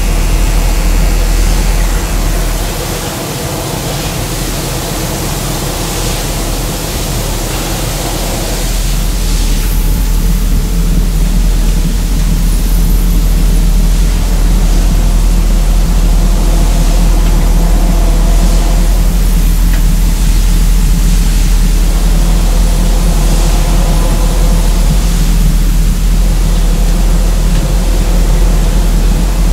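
Loud, steady low rumble with a hiss of noise over it. It dips slightly about three seconds in, then builds back up and holds steady.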